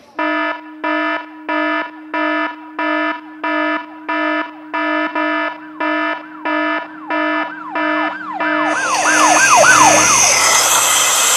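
Sound effects from a model-railroad fire scene: a buzzy electronic alarm horn beeps about twice a second. About halfway through, a wailing siren joins it, its sweeps coming faster and faster. Near the end a loud hiss takes over.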